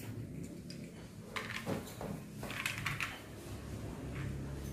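Plastic Lego bricks clicking and rattling as pieces are handled and pressed together, a cluster of clicks in the middle, over a steady low hum.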